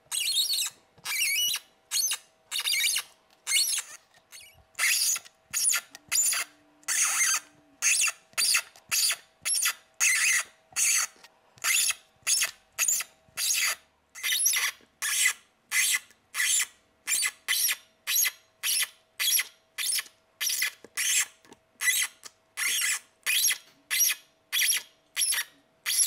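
M3 spiral tap turned by a hand tap wrench, cutting threads into a screw hole with a sharp squeak-rasp on each stroke of the handle. The strokes run about one and a half to two a second and come faster toward the end. A faint steady hum from a 3D printer runs underneath.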